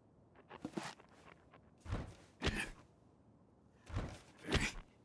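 Cartoon footstep sound effects: soft, short steps in pairs, with a few small clicks in the first second.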